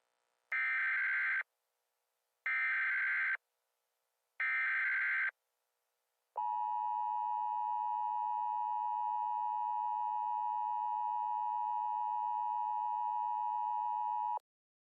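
Emergency Alert System header: three short buzzing SAME data bursts about two seconds apart, followed by the EAS two-tone attention signal (853 and 960 Hz) held steady for about eight seconds and cutting off abruptly. This sequence announces an incoming emergency alert message.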